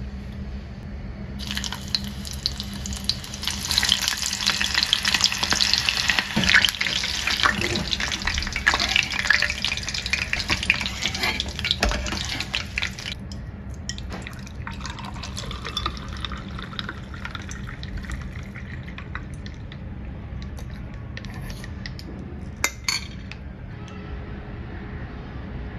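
Onion pieces sizzling and crackling in hot reused frying oil in a kadai. The dense crackle starts about a second and a half in and dies away after about thirteen seconds.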